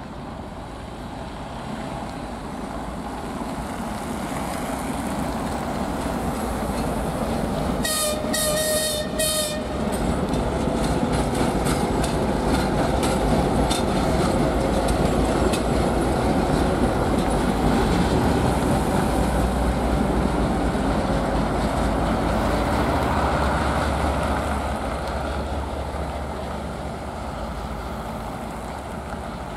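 2TE116UD twin-section diesel locomotive running past, its diesel engines growing louder as it approaches and fading as it draws away, with wheels clicking over rail joints. About 8 s in the horn sounds briefly in a few short blasts, a greeting from the crew.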